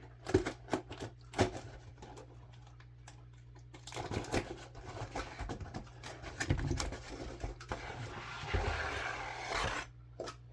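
Shipping box being handled and opened: a few light knocks, then several seconds of scraping and rustling of the packaging that stops abruptly.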